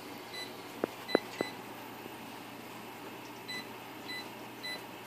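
Oven's touch control panel beeping as its keys are pressed to enter a meat-probe temperature: about six short, high key-press beeps, with a few light taps in the first second and a half.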